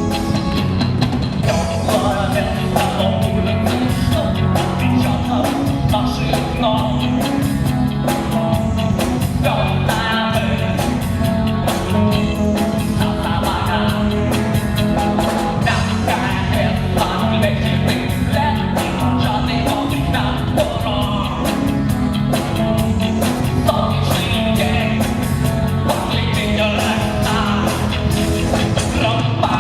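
Rock band playing a song: drum kit keeping a steady beat under guitar, with a vocalist singing.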